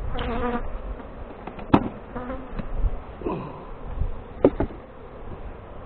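Honeybees buzzing, single bees passing close by with a short hum that bends up and down in pitch. Two sharp knocks cut through, just under two seconds in and again about four and a half seconds in.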